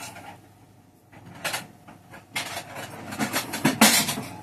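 Rummaging in a kitchen cupboard: plates clattering and scraping against each other as one is pulled out, loudest near the end.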